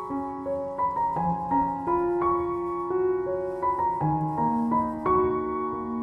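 Soft background piano music, single notes and chords following one another at an unhurried pace.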